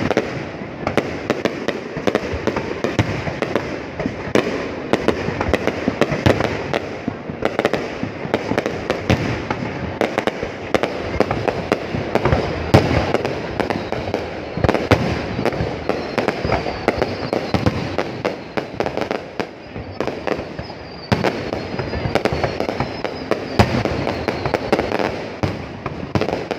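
A fireworks display going off without pause: a dense, continuous run of overlapping bangs and crackles.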